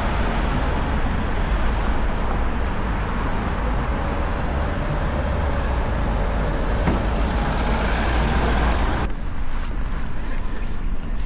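Road traffic: motor vehicles passing with steady engine and tyre noise. About nine seconds in the hiss drops away abruptly, leaving a low rumble and a few scattered knocks.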